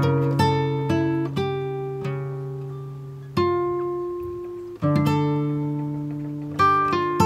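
Background music: a plucked acoustic guitar tune, single notes and chords struck and left to ring and fade.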